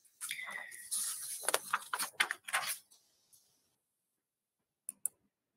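Rustling and handling noise close to a microphone for about two and a half seconds, then two quick clicks near the end.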